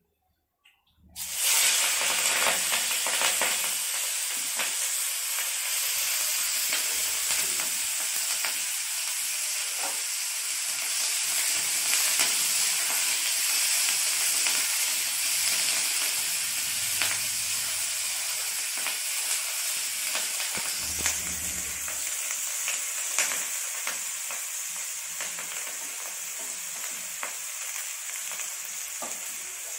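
Chopped vegetables hitting hot oil in a metal wok: a loud sizzle starts suddenly about a second in and carries on as steady frying while a spatula stirs them, with occasional clicks of the spatula against the pan.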